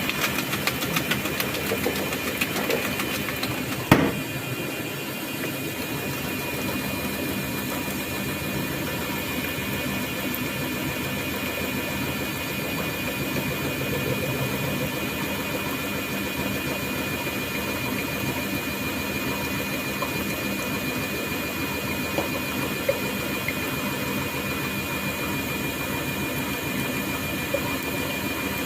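Thomson washing machine running mid-wash: a steady mechanical hum with a constant high tone over it, and one sharp click about four seconds in.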